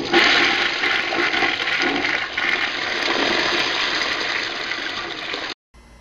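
Toilet flushing: a rush of water that starts loud and slowly tapers off, then cuts off abruptly about five and a half seconds in, leaving a faint low hum.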